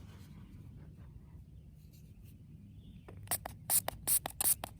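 Quiet for about three seconds, then quick, crisp rubbing strokes start, several a second: dirt being scrubbed off a freshly dug silver coin to bring out its design.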